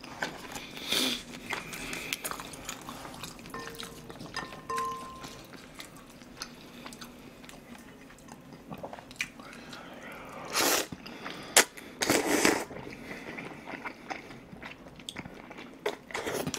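Close-miked eating of jajangmyeon: wet chewing and mouth clicks, with several louder slurps of noodles, two of them close together about eleven and twelve seconds in. Two short tones sound about four seconds in.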